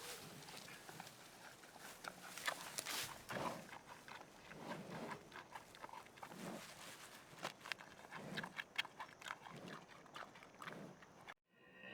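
An animal making short, low sounds every second or two, amid many small clicks and knocks.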